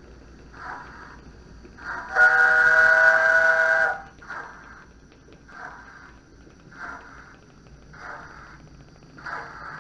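Model steam locomotive's DCC sound decoder playing a long whistle blast of several steady tones for nearly two seconds, over slow, regular exhaust chuffs about once a second as the locomotive moves off.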